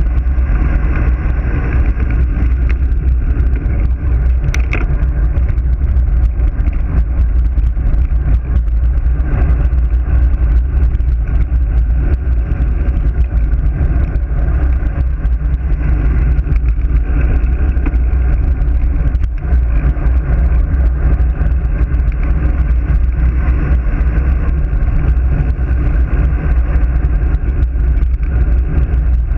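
Wind rushing over a GoPro's microphone on a road bike descending at speed: a loud, steady, low rumble with no let-up. A single short click about four and a half seconds in.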